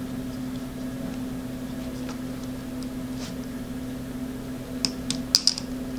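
Small clicks and taps as M2 screws are pushed down through a flight-controller and VTX stack in a plastic drone frame, with a quick cluster of sharp clicks about five seconds in. A steady low hum runs underneath.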